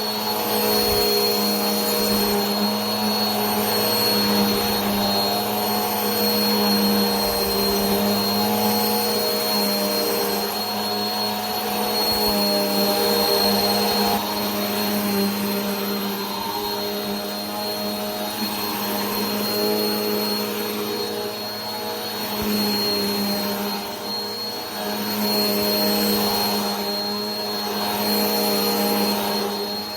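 Vacuum cleaner running steadily: a motor hum with a thin high whine over a rushing hiss, swelling and easing slightly now and then.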